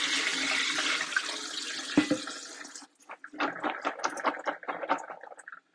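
Water running and splashing into a kitchen sink as pinto and kidney beans are drained, with a knock about two seconds in. The water cuts off suddenly about three seconds in and is followed by a run of light clicks and clatter.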